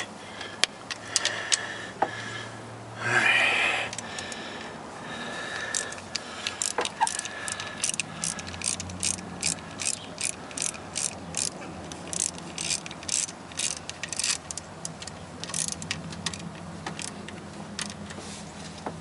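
Hand ratchet clicking as bolts are tightened down. Through the middle stretch it comes as an even run of clicks, about two a second.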